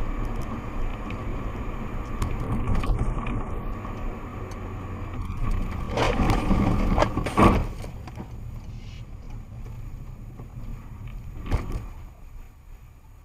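A car driving, heard through its dashcam: steady engine and road rumble, with a few short knocks about halfway through and once more near the end.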